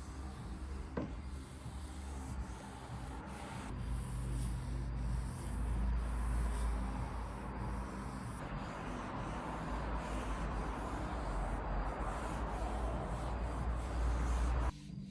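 Machine polisher running against car paint: a steady low motor hum under a rubbing, sanding-like hiss, which stops abruptly near the end.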